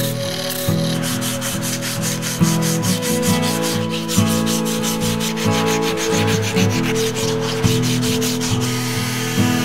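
A strip of sandpaper is pulled back and forth around a laminated hardwood bow riser in a quick, regular run of rasping strokes, which stop near the end. Guitar music plays underneath.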